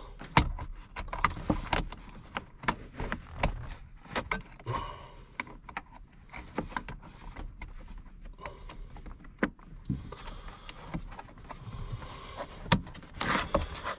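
Irregular clicks, knocks and rustling of plastic parts and wiring being handled under a truck's dashboard, as a vacuum line is worked around the heater box.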